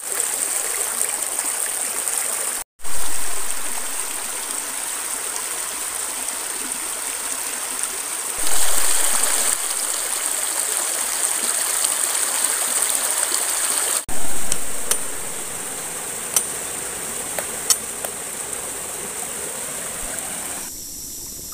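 Shallow stream rushing and splashing over rocks in small cascades: a steady noise of running water that jumps in level three times.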